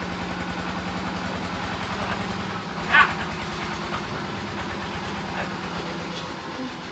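An engine idling steadily, with a short, sharp voice-like call about three seconds in.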